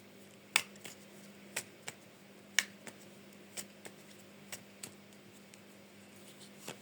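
Sharp light clicks and taps, about one or two a second, often in pairs, over a steady low electrical hum.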